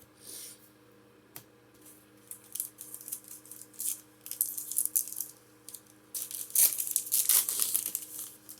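Foil booster-pack wrapper being torn open and crinkled, in irregular crackly rustles that grow loudest about six seconds in.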